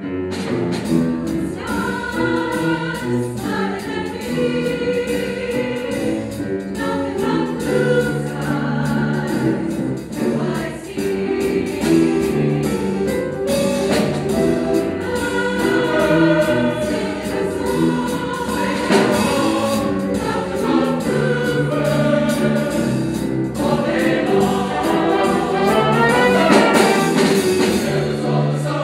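Mixed choir of men and women singing a choral medley arrangement with instrumental accompaniment, with low sustained notes underneath.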